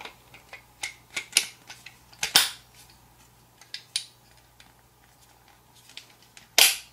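Plastic clicks and knocks of a Butler Creek polymer .22 magazine being seated in and pulled from the polymer magwell of a USFA Zip 22 pistol, with two louder longer snaps, one a couple of seconds in and one near the end.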